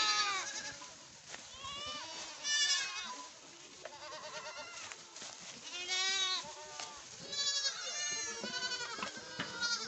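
Goat kids bleating, many wavering calls one after another and overlapping.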